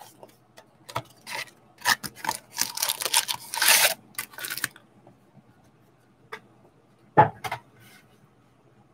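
A cardboard trading-card blaster box being handled and its foil-wrapped packs taken out and stacked on a wooden table: rustling, crinkling and scattered clicks through the first half. A couple of sharp knocks follow about seven seconds in.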